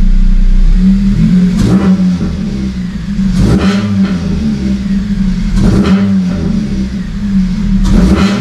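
Honda Civic FN2 Type R's 2.0-litre four-cylinder engine idling steadily with the cat-back exhaust rattle at idle cured. Four short noisy bursts about two seconds apart sound over the idle.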